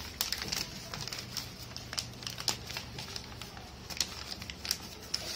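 Paper rustling and crinkling in irregular little crackles as two people's hands fold and shape sheets into origami flowers.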